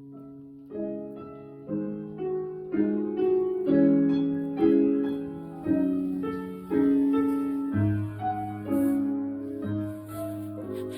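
Piano playing a slow passage of chords, a new chord struck about once a second, each ringing and fading before the next.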